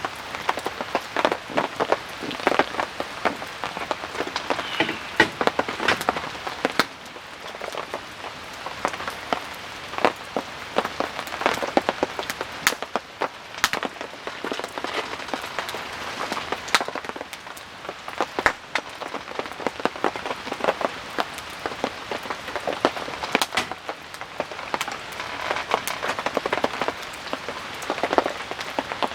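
Steady rain, with many separate drops striking a nearby surface at irregular intervals.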